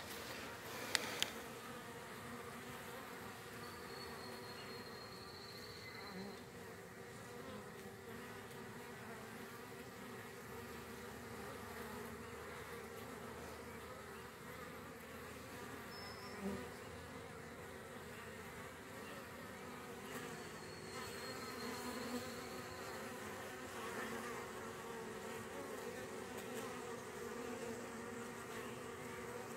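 Honeybees buzzing around their hive, a steady hum of wings that wavers a little in pitch. Two sharp clicks about a second in.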